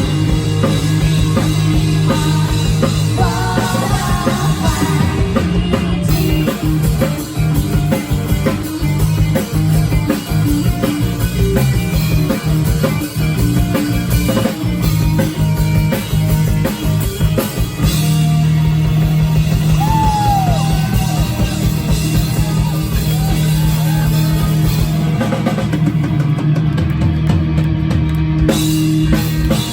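Rock band playing a song live, loud, with drum kit and guitar and singing.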